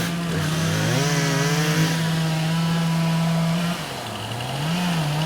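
Chainsaw running at a steady high throttle, then easing off about three and a half seconds in and revving back up briefly near the end.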